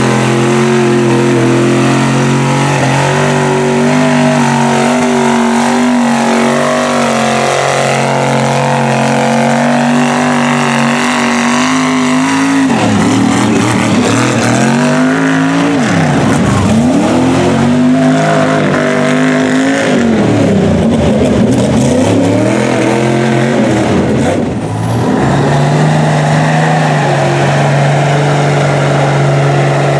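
Lifted mud truck engines running while the trucks churn through deep muddy water. Steady for the first dozen seconds, then the engine is revved hard up and down again and again for about twelve seconds, before settling back to a steady run near the end.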